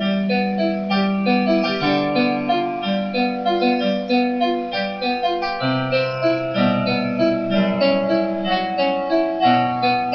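Electronic keyboard playing a sonata in a piano voice: a continuous run of notes over a lower bass line, several notes a second.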